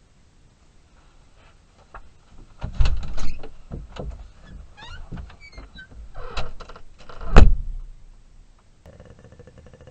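A run of knocks and thumps from someone moving about at a door, with a few short squeaks between them. The loudest thump comes about three-quarters of the way through, and a faint steady hum starts near the end.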